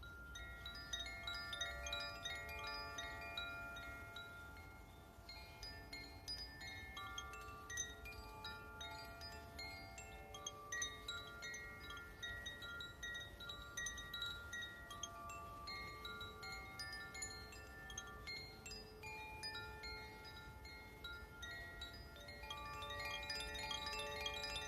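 Wind chimes ringing: many clear tones struck in quick succession, each left to ring on and overlap the next, over a steady low rumble.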